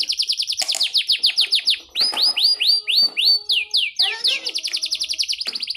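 Yorkshire canary singing: a very fast rolling trill of repeated high notes, which changes about a second in to slower sweeping notes and then returns to a fast trill near the end.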